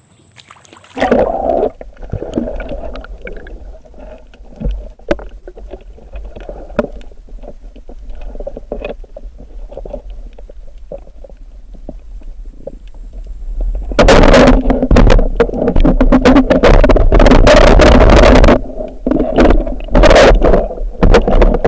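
Muffled water sloshing and gurgling against the camera of a spearfishing diver, over a steady low rumble. About two-thirds of the way through it turns much louder and rougher for about four seconds, then comes back in a few shorter loud surges.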